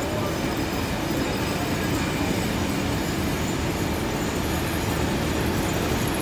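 Heritage passenger carriages rolling past at speed: a steady running noise of steel wheels on the rails.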